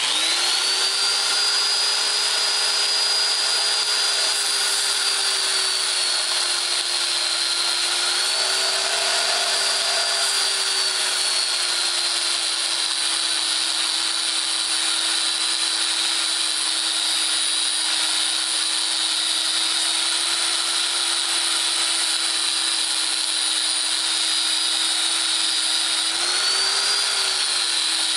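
Harbor Freight half-inch electric belt file sander switched on and running steadily, sanding paint off a piece of metal: a high motor whine over the hiss of the abrasive belt. Its pitch sags a little as the tool is loaded against the metal, most lastingly from about twelve seconds in, and briefly rises near the end.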